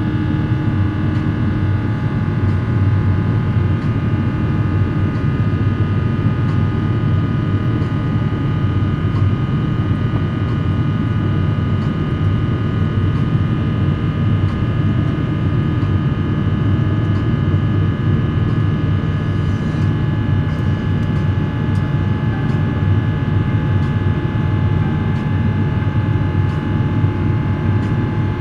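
Airbus A350-900 cabin noise from inside the cabin: a steady, loud low rumble of airflow and Rolls-Royce Trent XWB engines with several steady whining tones over it, unchanging throughout.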